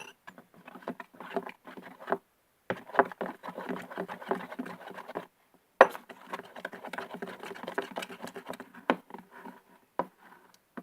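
Glue slime being stirred in a bowl as borax-water activator is worked in. It makes a rapid run of small sticky clicks and crackles in two long stretches, with a short pause in the middle.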